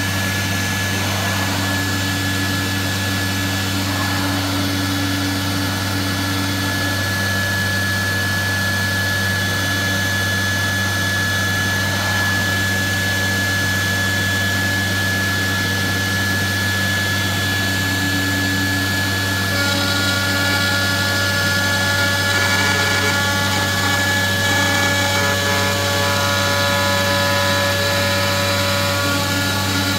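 CNC router spindle running and its bit cutting through a plywood sheet, a steady machine whine over a constant low hum. About twenty seconds in, a set of higher tones joins as the cut goes on.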